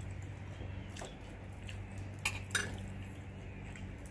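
Three light clicks of cutlery against a plate, one about a second in and two close together a little past the middle, over a steady low hum.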